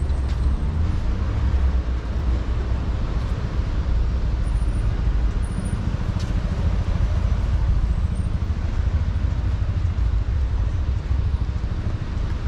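Street traffic noise: cars going by on a city road, with a steady low rumble.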